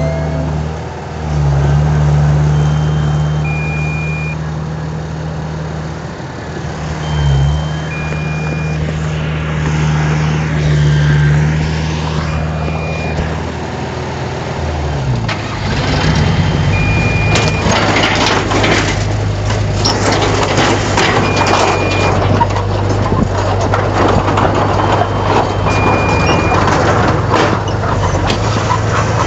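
Bulldozer's diesel engine running steadily, with a short high beep about every four seconds. About halfway through, the engine note changes and loud clatter and scraping set in as the machine works.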